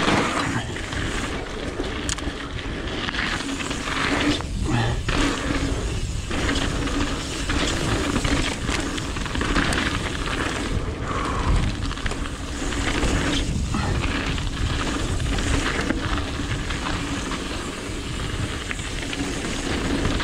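Mountain bike descending a loose gravel trail at speed: continuous tyre noise on gravel and the bike rattling over the surface, with a few sharper knocks from rocks and bumps.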